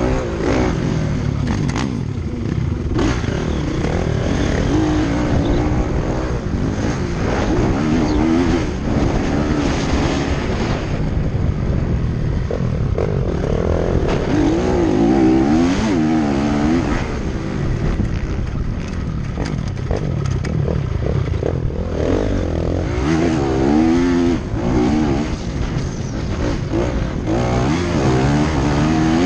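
Motocross dirt bike engines revving up and down again and again over a steady rumble, the pitch rising and falling every second or two.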